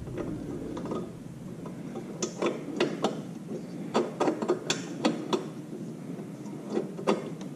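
Irregular light clicks, taps and scrapes of plastic and metal as a replacement headlight bulb is worked into the back of a Kawasaki Ninja 300's headlight housing, most of them in the middle of the stretch.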